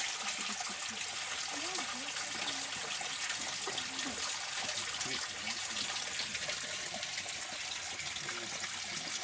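Spring water pouring and splashing steadily, with low murmuring voices of people nearby underneath.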